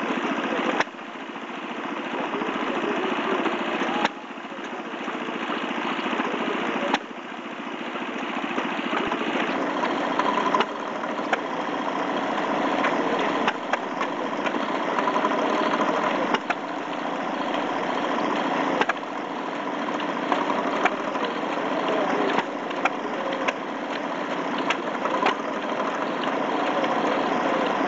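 Small vintage stationary engines running: a steady mechanical chugging broken by irregular sharp bangs every second or few.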